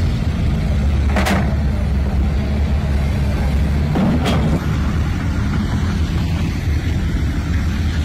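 Heavy vehicle and machinery engines running steadily at a low hum, with two short hissing whooshes, one about a second in and one about four seconds in.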